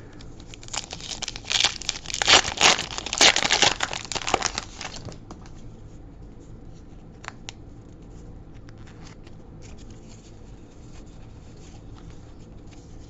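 A foil trading-card booster pack being torn open and crinkled for about four seconds, then faint rustling and clicks as the cards are handled.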